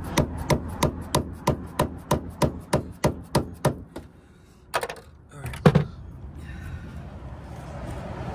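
Mallet hammering a punch held in a bolt hole of a steel strut brace, about three quick knocks a second for nearly four seconds, marking the spot on the car's body where the hole will be drilled. After a short pause come a few louder single knocks.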